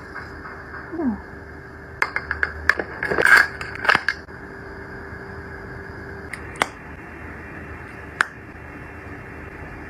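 Thin plastic wrapping crinkling and crackling in a quick cluster of sharp clicks about two to four seconds in, as it is peeled off a small cosmetic bottle. Two single clicks follow later on.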